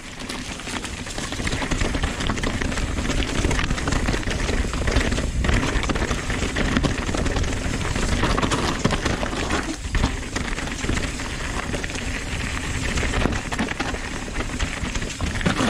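Nukeproof Dissent 290RS mountain bike ridden fast down a rough dirt and rock trail: tyres rolling and crunching over the ground and the bike clattering over bumps, with wind rumbling on the camera microphone. It builds up in loudness over the first couple of seconds as the bike gets going, then carries on steadily.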